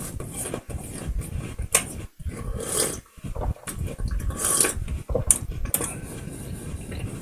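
Someone chewing apple close to the microphone: irregular crunching and wet mouth sounds, with a few short hissing noises.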